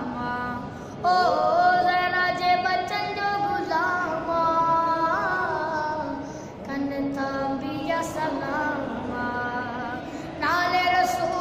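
A boy's voice singing a qaseeda unaccompanied, holding long sustained notes with wavering ornamental turns. The phrases are broken by short breaths, one about a second in and another about six and a half seconds in.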